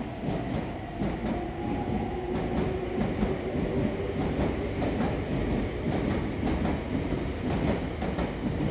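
Train noise at a railway platform: a steady rumble with many irregular clacks.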